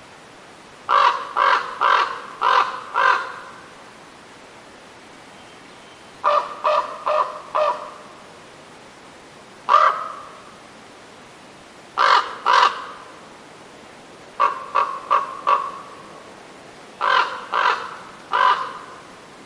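Crow cawing: short, harsh caws in runs of one to five, with pauses of a second or two between the runs.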